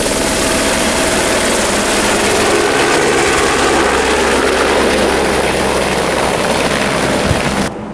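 Helicopter taking off close by and flying away, its rotor and engine noise loud and steady. It cuts off abruptly near the end.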